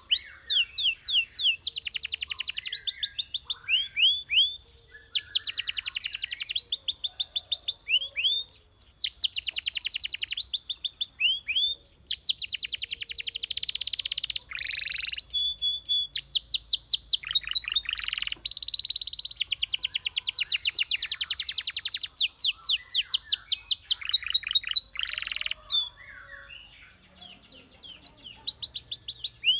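Domestic canary singing: long rapid trills of quickly repeated high notes, one tour after another with short breaks, and a brief quieter lull about 26 seconds in.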